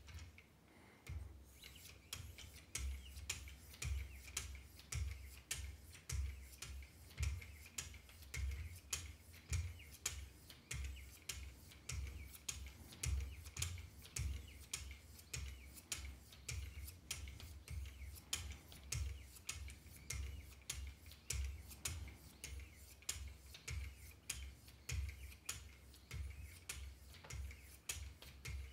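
Wicked Edge guided sharpener's fine-grit diamond hones being stroked along the blade of a Benchmade Mini Reflex II knife, a rhythmic scraping of about two strokes a second that starts about a second in.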